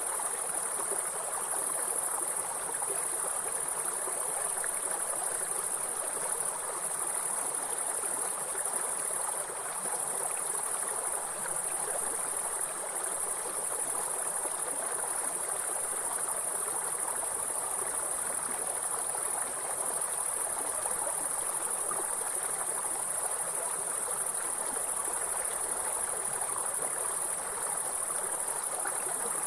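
Grasshoppers stridulating in a steady, high-pitched buzz over the continuous rushing of a flowing river.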